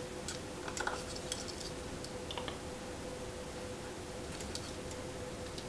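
Scattered light clicks and taps of fingers handling small parts inside the open rear compartment of a 1:14 scale RC hydraulic compact track loader, over a faint steady hum.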